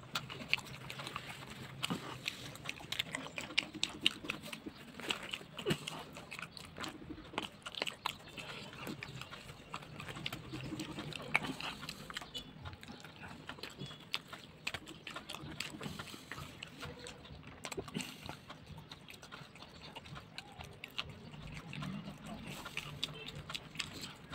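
Close-miked eating sounds: a person chewing and smacking their lips over mouthfuls of blended fava bean mash (ful) and flatbread, a continuous run of irregular clicks and smacks.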